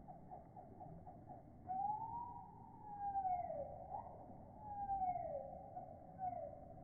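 Wild birdsong slowed down with slow-motion playback, so it sounds low and strange, like a jungle. First a fast run of short notes, then, from about two seconds in, long sliding calls that rise and fall, repeating about every second and a half.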